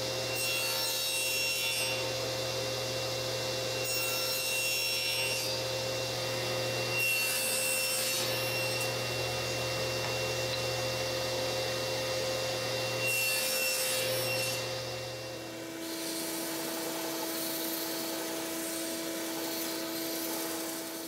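Table saw running steadily, making four short cuts through small pieces of plywood. About fifteen seconds in, a belt sander takes over, running steadily as a small plywood part is sanded against the belt.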